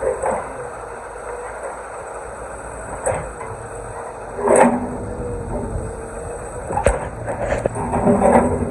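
Excavator running steadily while stones of a wall knock and crash as it is broken apart, with several separate impacts and the loudest crash about halfway through.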